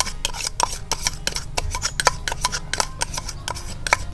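A spoon clicking and scraping against bowls while turmeric powder is knocked out of a small plastic bowl. The rapid clicks come at about five a second, some with a brief metallic ring.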